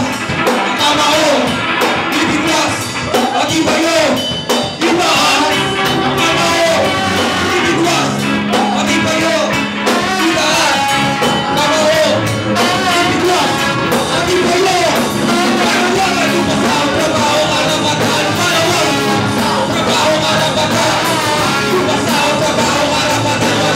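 Live rock band playing loud, with drums and electric guitar under vocalists singing and shouting into microphones.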